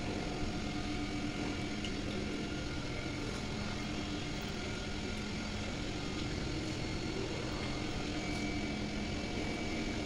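Steady machine hum with several held tones and an even level, from a motor running continuously.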